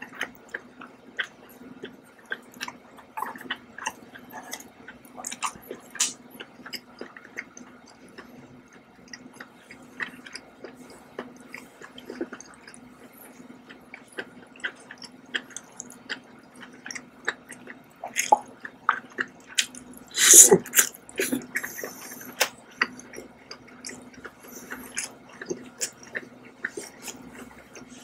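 Close-miked wet chewing and lip smacking of seared scallops in herb oyster sauce, many small wet clicks over a faint steady hum, with one louder, longer wet sound about twenty seconds in.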